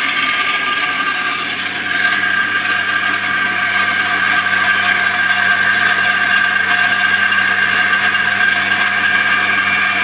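Butterfly Rapid+ mixer grinder motor running steadily with a high whine and a low hum, getting a little louder about two seconds in.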